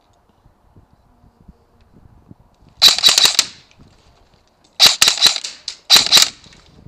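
An airsoft gun firing three short full-auto bursts of rapid sharp cracks, the first about three seconds in and the other two close together near the end.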